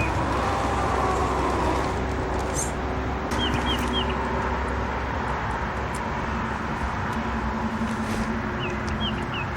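A bird calling in short groups of three or four quick chirps, twice, over a steady background rumble and hiss.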